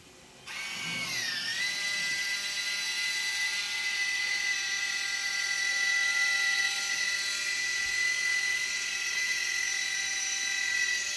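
A small electric motor starts about half a second in, winds up with a brief wobble in pitch, then runs with a steady high whine.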